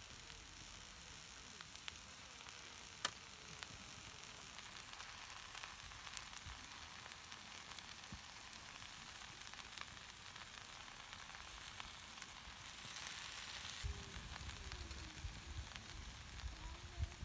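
Rice, beef and vegetables sizzling faintly in a black pan over a charcoal fire, a steady hiss with a few sharp pops. Near the end there is soft low rumbling and handling noise as kimchi is placed on top with tongs.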